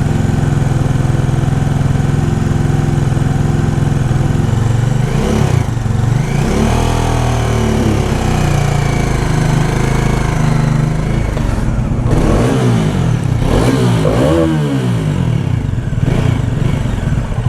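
Bajaj Dominar 400's single-cylinder engine idling steadily, then revved up and down twice, with the raspy 'khyarr' noise under check. The owner suspects the noise is a leaking silencer (exhaust) and not from inside the engine.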